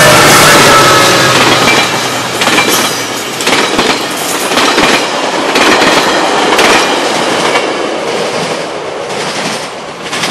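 GO Transit bilevel passenger coaches rolling past, their wheels clacking over the rail joints in repeated clusters. The sound fades gradually as the train moves away.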